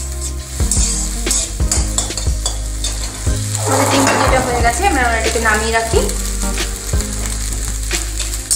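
Beaten egg sizzling in mustard oil in a steel kadai as it is scrambled, with a slotted metal spatula clicking and scraping against the pan. For a couple of seconds in the middle a louder wavering squeak rises over the frying.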